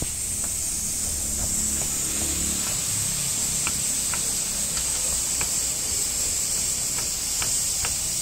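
Kitchen knife slicing a carrot on a wooden chopping board: faint, irregular blade taps on the board, over a steady high hiss.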